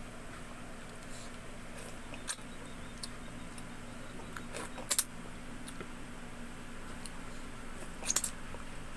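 Small close-up sounds of eating by hand: fingers working food on a plate, with a few sharp clicks, the loudest about five seconds in, and a short cluster of mouth clicks just after eight seconds as food goes into the mouth. A steady low hum runs underneath.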